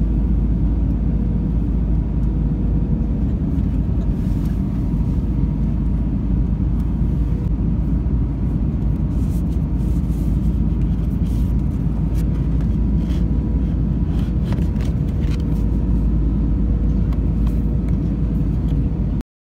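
Steady low rumble of an Airbus A319 airliner cabin on the ground, with a steady hum through it. Light clicks and rustles as the plastic seat-pocket safety card is handled, and the sound cuts off suddenly near the end.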